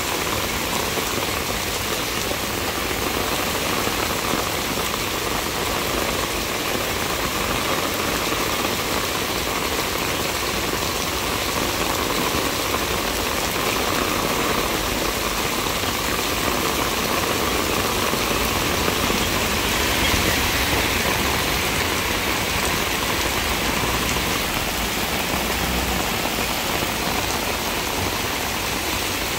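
Torrential black-rainstorm rain pouring steadily onto wet road and pavement: a dense, even hiss with no letup.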